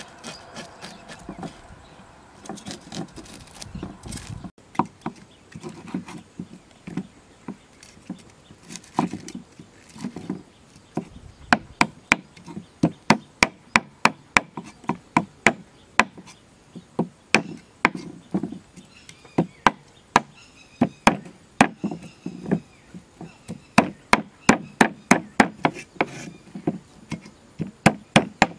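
A large knife scraping the scales off a whole red fish on a wooden chopping board: sharp scraping knocks of the blade on fish and wood. The strokes are sparse at first, then come in a steady run of about two a second.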